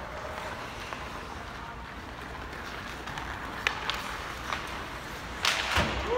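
Ice hockey game play in a rink: a steady hiss of skates on the ice, a few sharp clicks about two-thirds of the way in, and a louder burst of scraping noise near the end.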